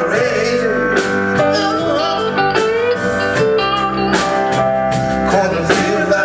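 Live blues band playing a slow song: a drum kit keeps a steady beat of about two strikes a second under electric guitar, bass and horns, with a man singing.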